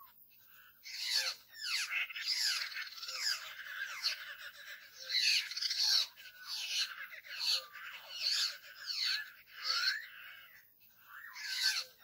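A flock of laughingthrushes (poksay) calling together: a busy, chattering jumble of overlapping rising and falling calls, coming in bursts every second or two, with a short lull about ten seconds in.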